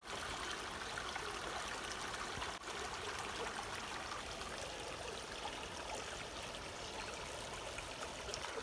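Small forest brook running over shallow riffles: a steady babble of running water, with a brief dropout about two and a half seconds in.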